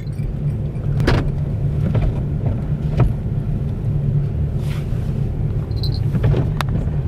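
Car engine running with a steady low rumble, with a few short clicks and knocks over it.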